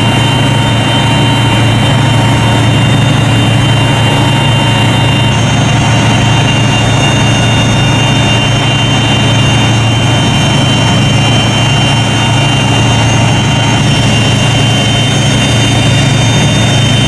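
Steady, heavy drone of a ship's engines and machinery at sea, with a few thin, steady whines higher up.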